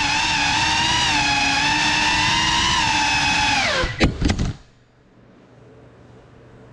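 Cinewhoop FPV drone's four brushless motors and ducted propellers whining steadily at high throttle, then dropping in pitch as the drone crashes with a few sharp knocks about four seconds in. The motors then stop, leaving only a faint low hum.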